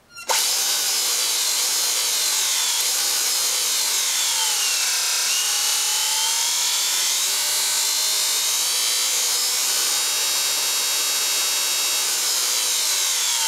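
Motenergy ME-1003 brushed DC motor spinning freely with no chain on, revved on the throttle: a loud hissing whine that starts abruptly, falls in pitch over the first few seconds, climbs and holds, then winds down near the end.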